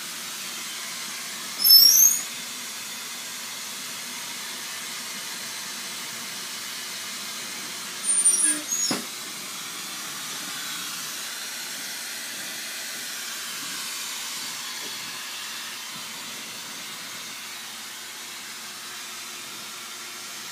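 Glassworking bench torch flame hissing steadily. Two short, loud, high-pitched sounds cut across it, once about two seconds in and again around eight seconds in.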